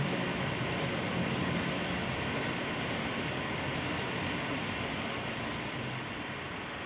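Model train running along the track: a steady rolling rumble of wheels on rails with a low motor hum, easing slightly towards the end.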